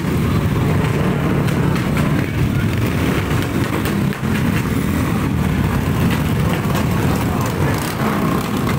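A steady stream of small motorcycles and scooters riding past one after another. Their engines run in a continuous, overlapping drone.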